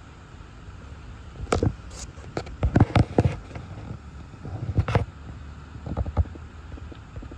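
Steady low rumble of storm wind heard from inside a car. In the middle stretch, a run of sharp, irregular knocks and pops stands out above it.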